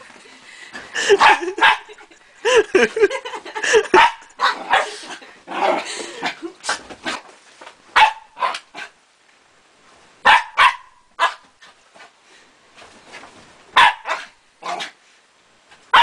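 Small white dog barking and yipping: a dense run of barks over the first few seconds, then short sharp single barks spaced a second or more apart.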